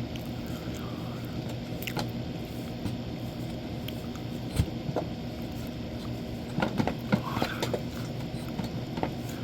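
Scattered knocks, clicks and scrapes of working an electric unicycle's tire bead loose from the wheel rim, with a cluster of them a little past halfway, over a steady low hum.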